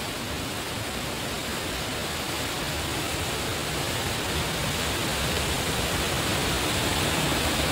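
A steady rushing noise, with no distinct events, slowly getting louder.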